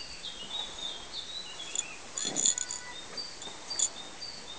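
Birds chirping and twittering in the background, with a brief sharp louder sound about halfway through and another sharp click about four seconds in.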